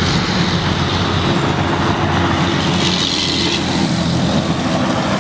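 A 2017 Kawasaki KX450F's single-cylinder four-stroke engine idling steadily.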